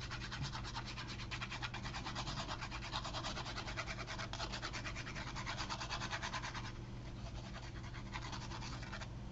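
Glue stick rubbed quickly back and forth along a strip of card: a fast run of scratchy strokes that eases off and grows fainter about two-thirds through.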